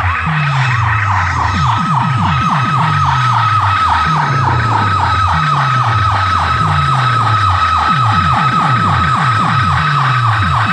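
Loud DJ track played over a large sound system: a siren-like falling sweep repeats about five times a second over deep bass notes that slide down in pitch again and again.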